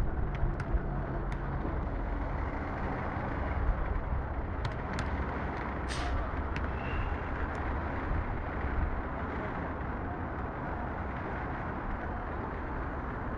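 Sharp taps of a football being kicked and bouncing on the hard court in a futnet rally, scattered irregularly over a steady low outdoor rumble.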